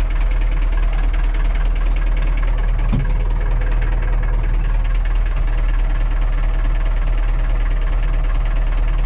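Massey Ferguson tractor's diesel engine running steadily, heard from inside the cab.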